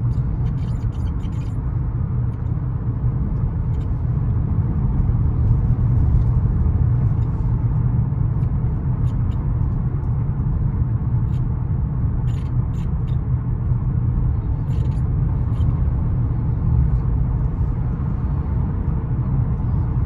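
Steady road and running rumble inside a 2021 Kia Sorento's cabin, with faint short creaks and clicks from the steering wheel: a cluster in the first second or so, then single ones every few seconds. The owner feels these as the steering rack catching somewhere.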